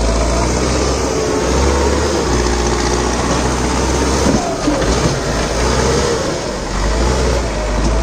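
Manitou Terex TLB-740S backhoe loader's four-cylinder turbocharged diesel engine running steadily as the machine is driven, with a wavering whine over the engine note.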